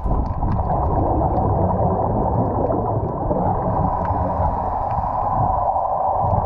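Underwater ambient noise heard through a GoPro's waterproof housing: a steady, muffled rush with scattered faint clicks.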